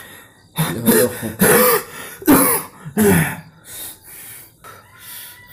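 A man coughing and clearing his throat, about four short bursts, then quieter breathing.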